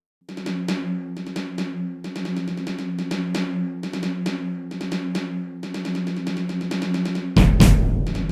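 Music build-up: repeated snare-drum hits over a held low chord, coming faster and denser, then breaking into a loud drop with heavy bass and full drum kit about seven seconds in.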